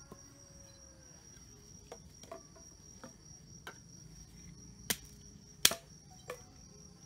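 Steady high-pitched chirring of crickets, with scattered light clicks and knocks of camping gear being handled; the sharpest knock comes about five and a half seconds in.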